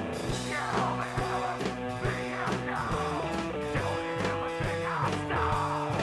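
Rock music with guitar, pitched notes moving in steps and a falling sweep about once a second.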